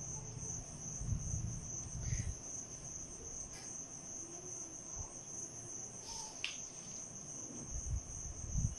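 A cricket's steady, high-pitched trill, with a few soft thumps and brief clicks.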